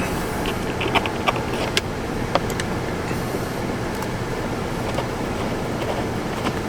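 Scattered light clicks and taps of screws and plastic mount parts being handled and fitted, over a steady low rumble.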